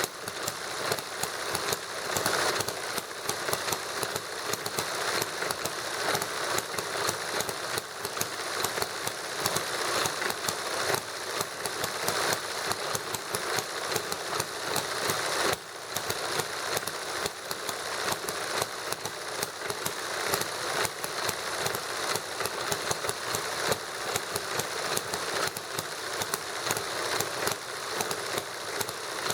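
Two model engines running together: a small hit-and-miss gasoline model engine running on lighter fluid, firing in rapid, slightly uneven sharp knocks, alongside a model Stirling engine. The sound drops out very briefly about halfway through.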